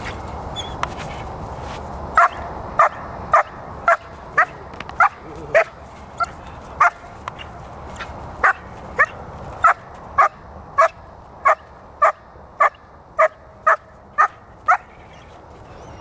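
Six-month-old protection-training puppy barking at the agitating helper in bite work: a long string of short, sharp barks at about two a second, starting about two seconds in, with a brief pause midway.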